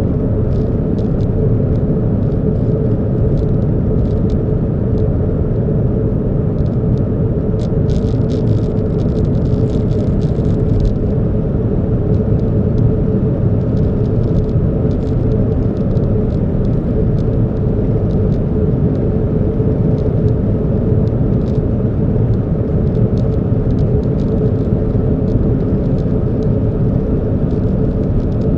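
Steady low rumble of a car, with a constant hum and scattered light clicks that cluster about eight to eleven seconds in.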